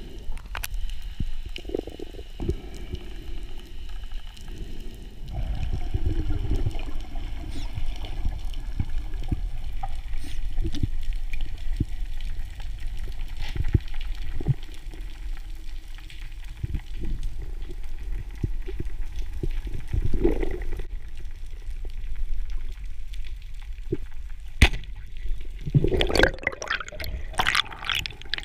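Underwater water noise picked up by a camera in its housing: a steady low rumble with scattered clicks and knocks, and a louder stretch of bubbling and churning water about three seconds before the end.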